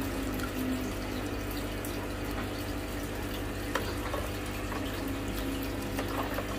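Aquarium filter running: a steady trickle of water over a constant low hum.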